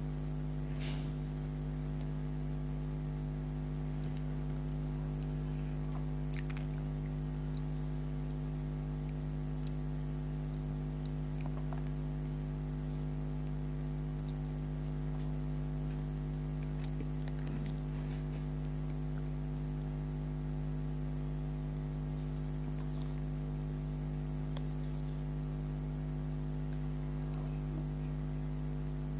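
Steady electrical hum throughout, with faint occasional clicks and soft mouth sounds of eating soft sweets, one sharper tick about six seconds in.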